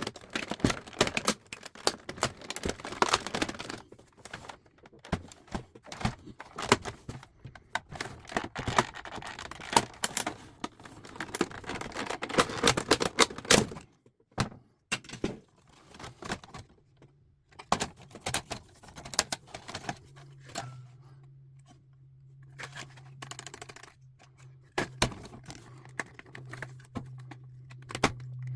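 Metal parts of an old typewriter being handled and taken apart, clicking and clattering. The clatter is dense for the first half, then thins to scattered single clicks. About two-thirds of the way through, a steady low hum starts.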